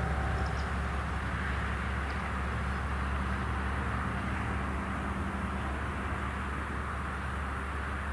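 JR Kyushu KiHa 200 diesel railcar at a distance, a low, steady rumble that fades a little.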